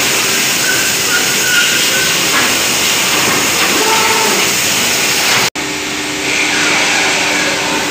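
Texpa automatic flat-sheet sewing and folding line running: a steady, loud hiss of machine noise. The sound drops out for an instant about five and a half seconds in and comes back as a steadier hum with a low tone in it.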